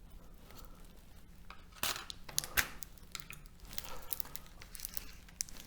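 Steel E-I laminations of a transformer core being pried loose with a tool: scattered metallic clicks and scrapes, the two loudest clicks a little after two seconds in, then a run of lighter ticks.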